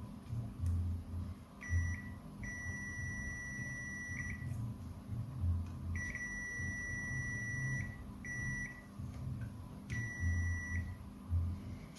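Multimeter continuity beeper sounding five times, a steady high tone in short and long beeps that start and stop abruptly as the probes make and break contact.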